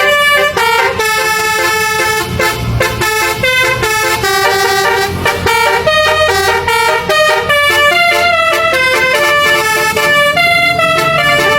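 A 12-note basuri musical air horn playing a melody, one loud horn note after another in quick steps of pitch.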